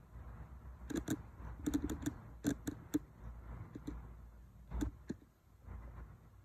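An irregular run of about a dozen sharp clicks and taps, bunched between about one and three seconds in, with a few more near four and five seconds, over a low rumble.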